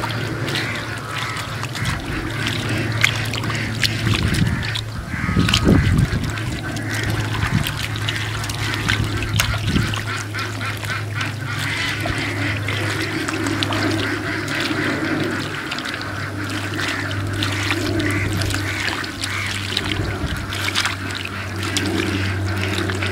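Ducks quacking on and off, with water splashing and sloshing louder about four to six seconds in.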